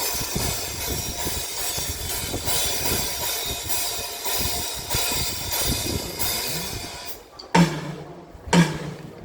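Drum kit sound-checked on a stage: drums and cymbals played together in a loud, dense wash for most of the time. Near the end the playing stops and a single drum is struck on its own twice, about a second apart, each hit ringing with a low pitch.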